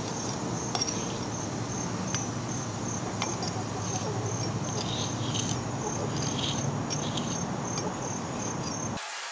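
Steel brick jointer scraping along fresh mortar joints, tooling them smooth, with a few light clicks and scrapes. Insects chirp throughout in an even, rapid train of pulses over a steady low background noise, which cuts off abruptly near the end.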